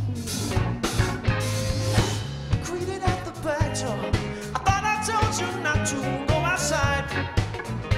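Live band playing a rock number: drum kit keeping a steady beat under keyboards and electric guitar, with a bending, wavering lead melody from about three seconds in.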